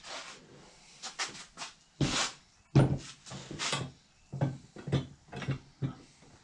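Spreader parts being handled during assembly, with the hitch assembly picked up and fitted. It makes a run of about a dozen irregular knocks and clinks, the loudest about two to three and a half seconds in.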